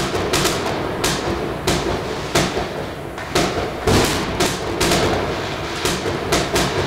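New Year's fireworks and firecrackers going off in quick, irregular succession: sharp bangs about twice a second, some close and loud, over a steady low hum.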